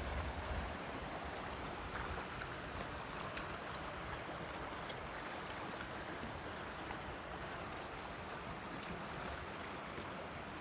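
Steady, even rush of water flowing along an open water channel.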